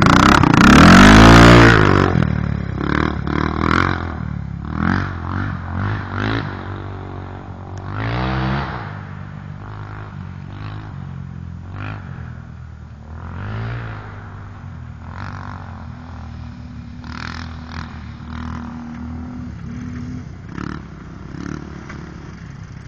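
A sport quad's engine revs hard as it passes close by in the first two seconds, its pitch sweeping. Off-road engines then rev up and fall back again and again further off, with a steady engine hum in the second half.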